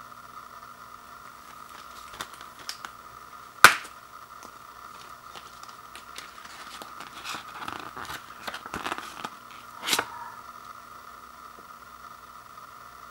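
Plastic Blu-ray case being handled and opened: a few light clicks, then a sharp click a little before four seconds in, rustling and scraping of the case and its paper insert between about seven and nine seconds, and another click near ten seconds. A steady faint hum runs underneath.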